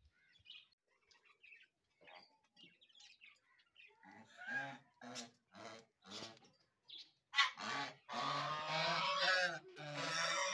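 Domestic geese honking: a few short, separate honks from about four seconds in, then a loud, almost unbroken run of honking in the last few seconds.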